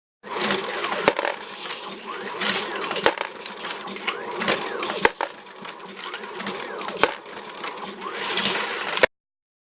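Dillon 1050 progressive reloading press cycling under AmmoBot motor drive, a sharp clack about every two seconds as each stroke completes. Mechanical whirring and rattling of parts and cases fill the time between strokes.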